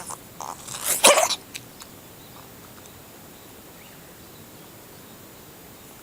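A Siamese cat giving an odd sneeze, 'guhihi', about a second in, with a couple of fainter short sounds just before it.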